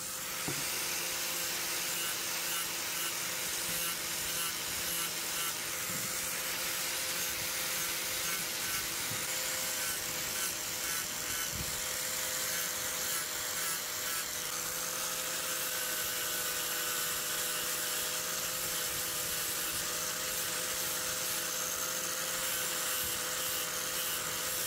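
Small electric sander running steadily with a constant motor whine, its round pad sanding the painted cast-iron spoked wheel of an antique hand grinder.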